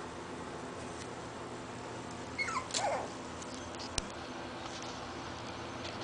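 Scottish Terrier puppy giving one short, high cry that falls in pitch, about two and a half seconds in, while the pups play-fight. A single sharp click follows about a second later.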